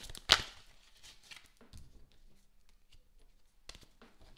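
Tarot cards being handled on a wooden table: one sharp snap about a third of a second in, then faint rustles and small taps of card stock.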